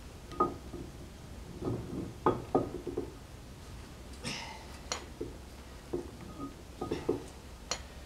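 Scattered metal-on-metal clinks and knocks, some ringing briefly, as a heavy multi-groove V-belt pulley and its bushing are worked onto an engine's PTO shaft, with a short scrape about four seconds in.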